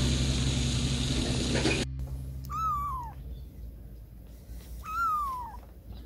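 Steady outdoor background noise cuts off abruptly about two seconds in. Then a very young kitten mews twice, each a short high call that rises briefly and then slides down.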